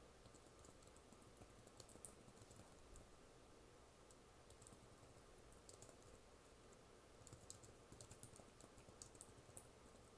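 Computer keyboard typing: soft key clicks in short bursts, with a denser run of keystrokes in the last few seconds.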